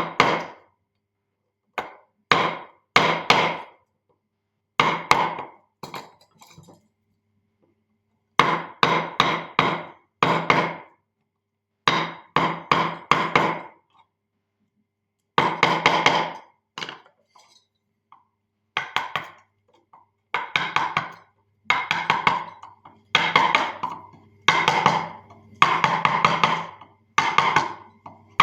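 Carving chisel driven into wood with a mallet, struck in quick runs of two to five ringing taps with short pauses between.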